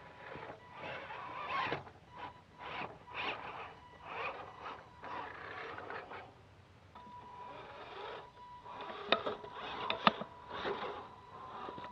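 Electric RC Clodbuster truck driving over rough ground: tires scraping and crunching in uneven spurts over a thin steady motor whine. Two sharp knocks come about 9 and 10 seconds in.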